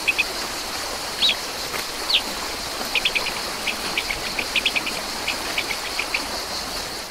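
Outdoor nature ambience: a steady hiss with a constant high insect drone under it. A bird gives a few short falling chirps, then a quick run of short chirps through the middle. It all fades out at the end.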